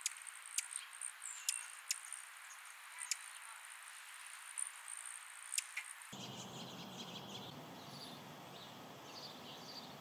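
Faint outdoor ambience at hummingbird feeders: a thin, steady high whine with a handful of sharp high ticks. About six seconds in it changes abruptly to a fuller, faint outdoor hiss with a few soft, high bird chirps.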